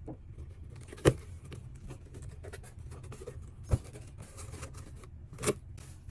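Three light knocks and taps from items being handled and set down while a parcel is unpacked, spaced a couple of seconds apart over a low steady hum.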